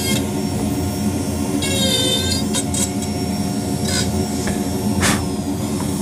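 Marathon micro carver running at high speed with a fine Kutzall taper burr cutting into wood, a steady whine, with a few sharp clicks part way through.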